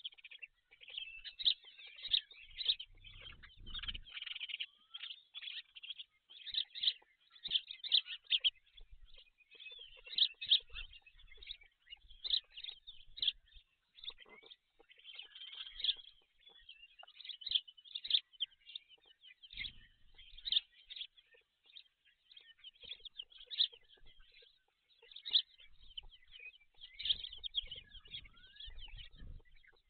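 Birds calling: a dense run of short, high chirps and calls, one after another with brief gaps.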